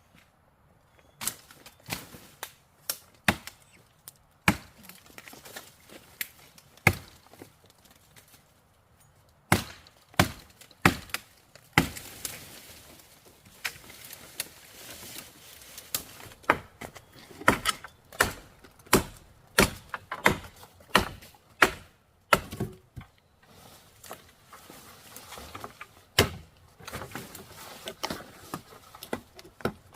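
Repeated chopping strokes of a blade striking wood or plant stalks, irregular and about one a second. They pause briefly about a third of the way in, then come faster, up to about two a second, through the second half.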